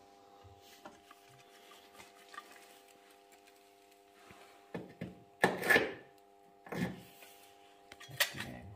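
A few knocks and scrapes as a bracket is handled and fitted into the stripped dashboard frame of a Toyota Land Cruiser. The loudest cluster comes about halfway through and a shorter one near the end, over a faint steady hum.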